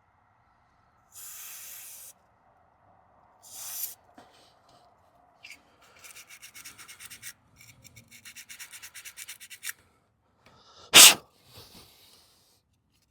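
A brush scrubbing rapidly over the corroded contacts of a car's 42-pin wiring connector, about five or six strokes a second, with short hissing sprays of cleaner before it. Near the end comes one loud, short whoosh.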